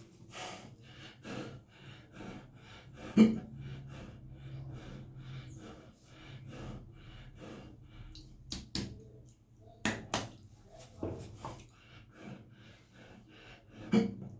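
A man hiccuping, with loud sudden hiccups about three seconds in and again near the end, and quick repeated throat and breath sounds between.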